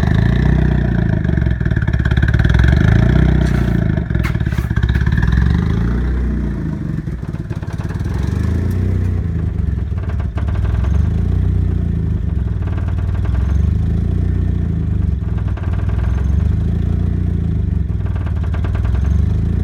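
1994 Mazda Miata's turbocharged 1.8-litre four-cylinder running loud through a straight-piped exhaust at a rough, uneven idle. A higher note on top fades out about six seconds in, leaving the lumpy low rumble. The owner suspects the badly leaking exhaust manifold beside the turbo is choking the engine.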